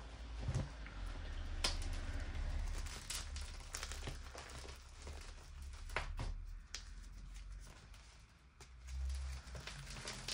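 Crumbled gym chalk, powder and small dried chalk-reform chunks being scooped and rubbed between fingers: soft powdery crumbling with a handful of sharper crunches scattered through, over a low rumble.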